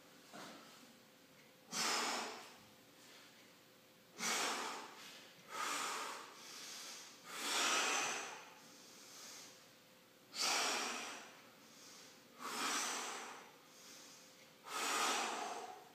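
A man breathing hard under exertion during a set of dumbbell biceps curls: loud, forceful breaths out about every two seconds, one with each rep.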